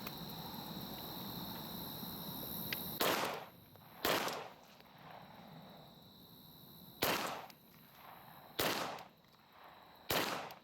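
Five pistol shots from a handgun firing carry ammunition, each a sharp crack with a short echo. Two come about a second apart, then after a pause of about three seconds come three more, about one and a half seconds apart: two fired standing, three from kneeling.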